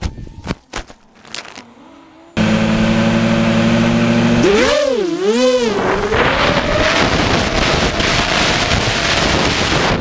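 A ZMR250 FPV racing quadcopter lies in the grass: a few light knocks and rustles with its motors near quiet. About two and a half seconds in, its Cobra 2204 brushless motors with 5045 bullnose props suddenly spin back up with a steady hum. Their pitch swoops up and down twice as the throttle is worked, then settles into a steady high whine as it flies off.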